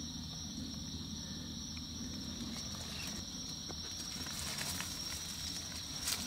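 Steady, high-pitched chorus of insects droning evenly, with a few faint rustles in the second half.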